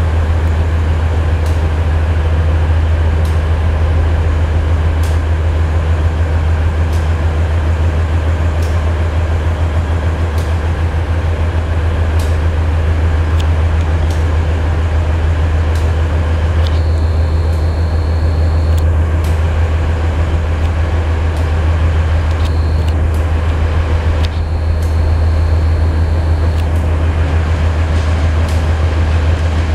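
Passenger train running slowly over station tracks, heard from aboard: a steady low rumble and hum with scattered clicks of wheels over rail joints and points. A high, steady squeal sounds in a few stretches in the second half as the train pulls into the platform.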